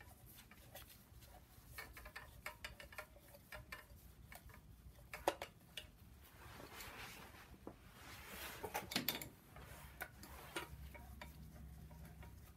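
Ratchet wrench clicking in short runs while the bolts of the heat shield behind the turbos of a BMW N54 engine are worked loose, with scattered metal clicks and knocks from the tool in the tight space.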